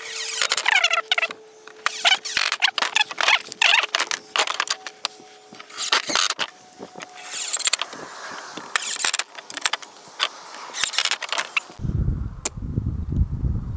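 Cordless impact driver driving screws through snap-fastener studs into oak boards, in repeated short bursts of rapid hammering with pauses between screws. Near the end a low wind rumble on the microphone takes over.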